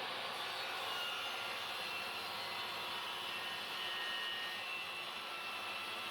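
A workshop machine running steadily, an even whooshing whir with no starts or stops.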